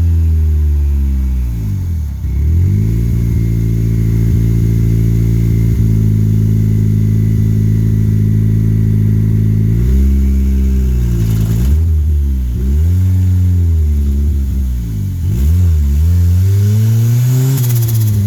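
Turbocharged Honda Civic D16Z6 1.6-litre four-cylinder engine driving: the revs drop over the first two seconds, hold steady for several seconds, then rise and fall several times.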